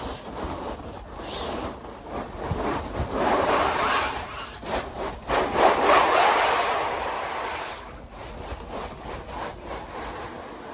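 Kodiak canvas tent roof pushed up from inside to shed its snow load: canvas rubbing and scraping with rushing swishes of snow sliding off, in several swells that are loudest around the middle.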